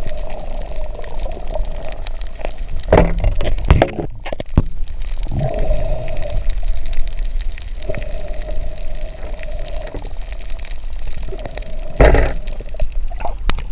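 Underwater sound picked up through a camera housing: water swishing and gurgling, with a wavering hum that comes and goes. Loud knocks a few seconds in and again near the end.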